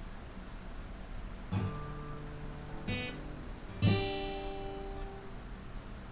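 Guitar chords strummed slowly, three strums about a second apart, each left to ring; the third is the loudest. It is the opening of a song.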